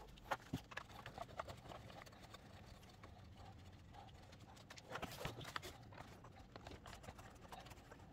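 Light, scattered clicks and knocks of hard plastic parts as an EK Civic's AC control unit is worked free of the dash fascia, with a short flurry of rattling about five seconds in.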